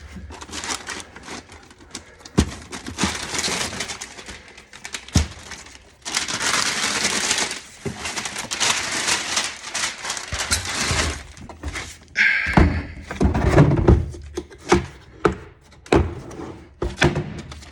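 Handling and unpacking a vehicle tool kit: packaging rustles and the tools knock and thunk as they are taken out and set down. The rustling is longest and densest from about six to eleven seconds in.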